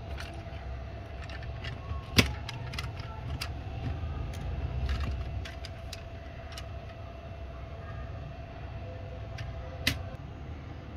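Diecast metal toy cars being handled: scattered light clicks and taps of metal and plastic, with a sharper knock about two seconds in and another near the end, over a low rumble and a faint steady tone.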